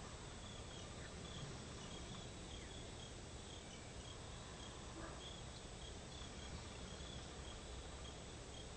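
Insects chirping, a short high chirp repeating about once a second over a steady low background hiss.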